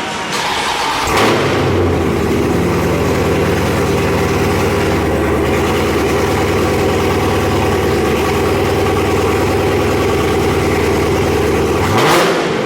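Dodge Charger's V8 with catless mid pipes cranking and firing up about a second in, then idling steadily. It gives a short rev near the end.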